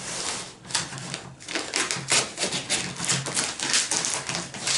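A mail-order package being opened by hand: a quick, irregular run of scrapes, rustles and clicks from cardboard and packing material.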